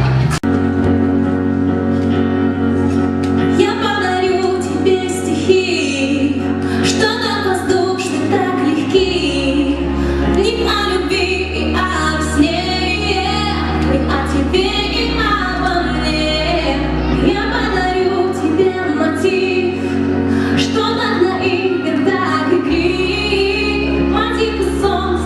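Music with a woman singing a melody over accompaniment, its held bass notes changing every few seconds.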